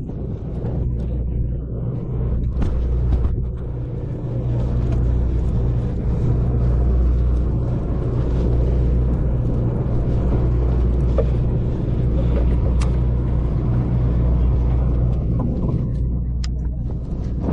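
A sportfishing boat's engine running with a steady low drone, with a few short clicks over it.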